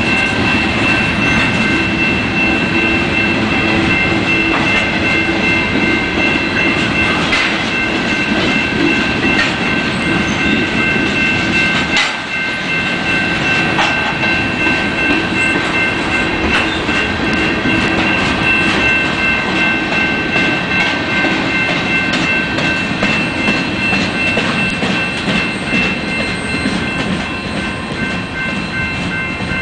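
Freight cars rolling past: a steady rumble of wheels on rail with clickety-clack over the joints, and steady high ringing tones running over it.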